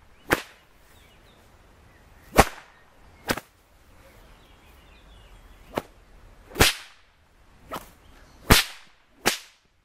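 A whip cracking about eight times in a row, every second or so: four loud, sharp cracks alternating with lighter ones, as the tip is aimed at a target.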